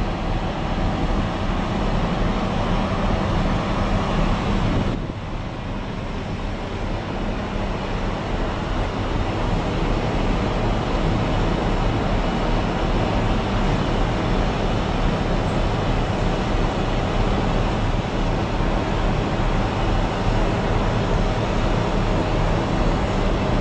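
Steady drone of heavy machinery, a low hum under a rushing noise, shifting abruptly about five seconds in.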